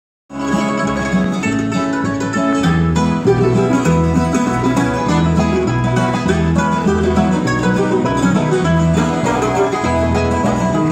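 Bluegrass band playing the instrumental introduction to a song, with guitar and banjo picking over a bass line that alternates between two low notes in a steady rhythm. The music starts abruptly right at the beginning.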